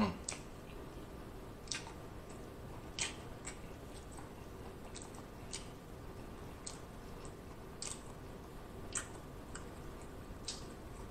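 A person chewing a mouthful of shrimp and chicken gumbo: soft, wet mouth smacks and clicks at irregular intervals, about one every second, the loudest right at the start.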